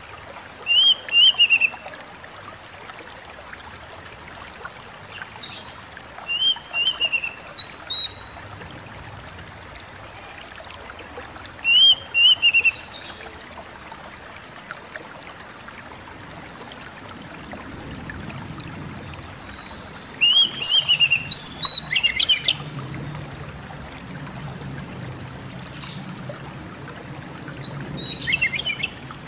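Oriental magpie-robin (kacer) singing short phrases of a few quick, falling whistled notes, repeated every several seconds, with a busier burst about two-thirds of the way through. A steady background hiss runs underneath.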